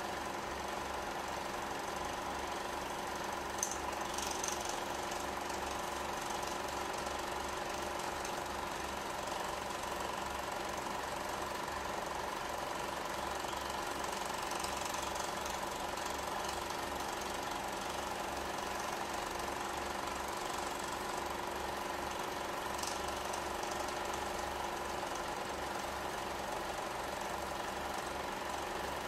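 Film projector running: a steady mechanical clatter and hum with a fast, even rhythm, and a single sharp tick about four seconds in.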